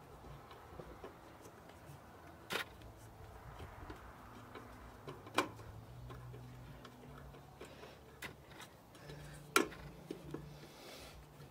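A few sharp, isolated metal clicks and taps, about three seconds apart and the loudest near the end, as a chrome headlight trim ring and its small screws are handled and seated against a motorcycle's chrome headlight bucket.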